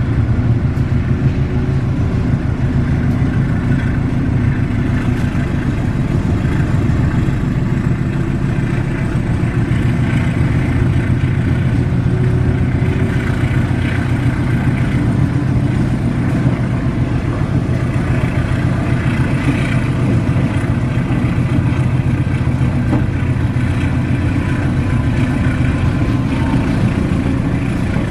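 Diesel-electric locomotive engine running steadily at a low, even hum, with no change in pitch.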